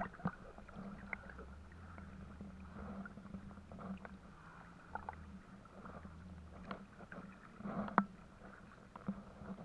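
River water sloshing and lapping right at the microphone as the camera rides the surface beside a plastic-bottle net float in a fast current, with scattered small splashes, the loudest about eight seconds in. A low steady hum runs underneath.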